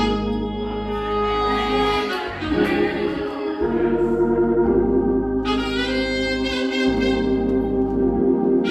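Saxophone playing a melody with long held notes, over a sustained organ accompaniment.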